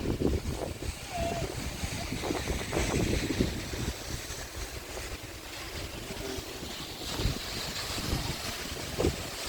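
Rain falling on an umbrella, a steady hiss of rain with many irregular low patters and rumbles, partly wind buffeting the microphone.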